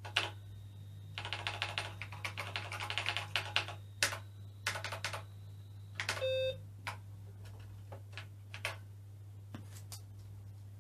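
Typing on the BBC Master 128's keyboard: a quick run of key clicks, then single key presses, with a short beep just after six seconds in and a steady low hum underneath.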